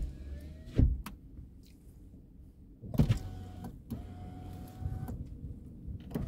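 Knocks and rubbing of a phone being handled inside a car, with a steady thin whine for about two seconds in the second half that stops abruptly.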